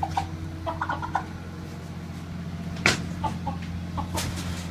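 Chickens clucking in short, scattered calls, with one sharp knock a little under three seconds in, the loudest sound, over a steady low hum.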